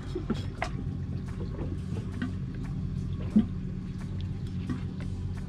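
Water sloshing and lapping against a boat hull over a steady low hum, with scattered small clicks and knocks and one louder thump about three and a half seconds in.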